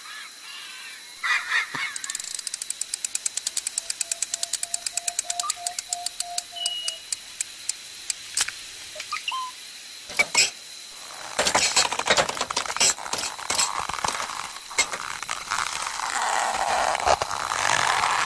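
Cartoon sound effects: a fast run of clicks that slows down, a short steady whistle in the middle, a couple of sharp knocks, then a long busy clatter of noise that builds toward the end.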